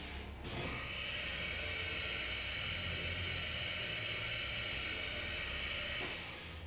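Chevalier 2040VMC vertical machining center in an automatic tool change, with a steady hiss of compressed air that starts about half a second in and cuts off about a second before the end.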